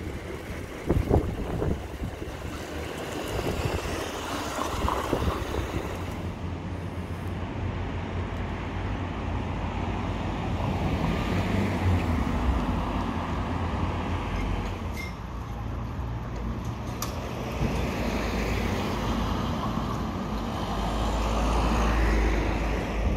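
Road traffic on a town street: cars driving past in a continuous low rumble that swells and fades, loudest near the end as a vehicle passes close by.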